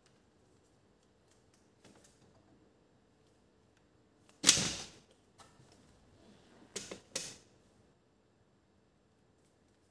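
Small tools and parts handled on a work surface: a sharp clack about four and a half seconds in, then two quick clicks a little before the three-quarter mark, with faint taps between.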